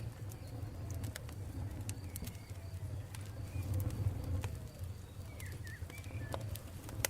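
Campfire crackling, with scattered sharp pops and snaps over a low steady rumble. Birds chirp now and then, once about two seconds in and again near six seconds.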